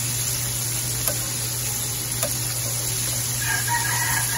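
Breaded sardines sizzling steadily in hot oil in a frying pan, with a couple of light clicks from metal tongs. Near the end a brief high tone sounds over the sizzle.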